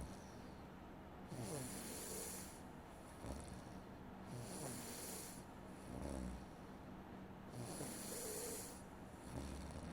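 A sleeping person snoring in a slow, steady rhythm, about one breath cycle every three seconds: a short low snore alternating with a hissy breath sound.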